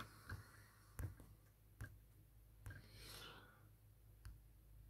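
Near silence, broken by about five faint, short clicks a second or so apart and a soft hiss about three seconds in.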